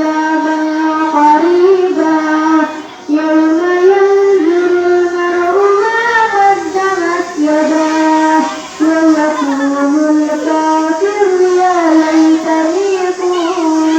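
A young girl's voice reciting the Quran in a melodic, chanted style, holding long ornamented notes, with brief pauses for breath about three and nine seconds in.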